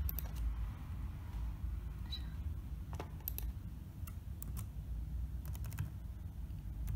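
Laptop keyboard keys clicking in scattered taps, with a quick run of taps near the end as a number is typed into a spreadsheet's search box, over a low steady rumble.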